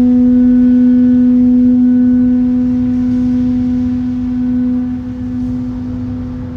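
A single long musical note held at one steady pitch with a ladder of overtones, slowly fading over the last couple of seconds, over a low rumble.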